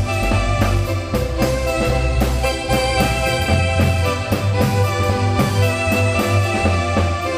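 A marimba band playing a lively dance tune, the marimba's quick notes over a strong bass line and drum kit with a steady beat.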